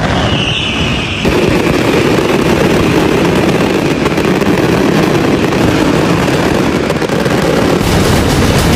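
Daytime fireworks going off in a dense, continuous crackle, with a falling whistle in the first couple of seconds.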